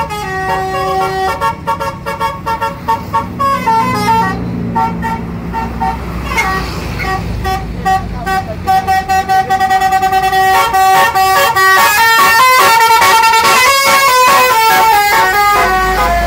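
Tour bus Basuri telolet horns, a set of roof-mounted trumpet horns, playing a tune in stepped notes. About ten seconds in, the notes turn into a fast run of short blasts. A low engine rumble sits underneath.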